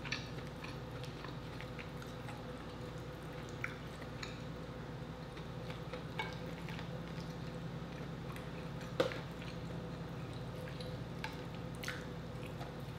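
Scattered small cracks, clicks and wet squishing of a king crab leg's shell being pulled apart by hand, the sharpest crack about nine seconds in, over a steady low hum.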